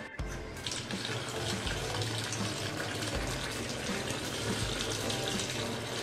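Tap water running into a metal bowl of mint leaves in a stainless steel sink: a steady splashing rush that starts about a second in. Background music with a regular beat plays under it.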